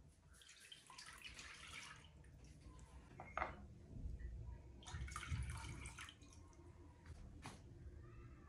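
Milk pouring from a cup into a glass bowl, a faint splashing trickle, with a sharp clink about three and a half seconds in and another near the end.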